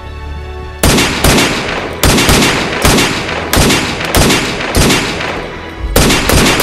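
A string of gunshots begins about a second in, some dozen shots at uneven spacing, each ringing out in a long echoing tail.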